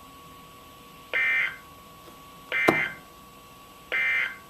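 Three short bursts of the warbling SAME end-of-message data tones from a NOAA Weather Radio broadcast, marking the end of the severe thunderstorm warning, with a faint steady tone underneath. A sharp click falls in the second burst.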